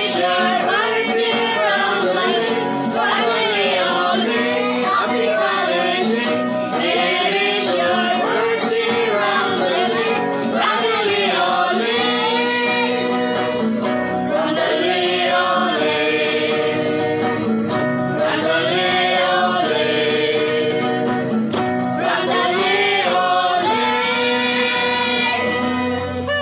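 A group of people singing together over instrumental backing music.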